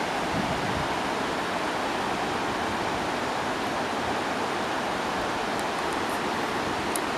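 Creek rapids: a steady rush of white water tumbling over rocks.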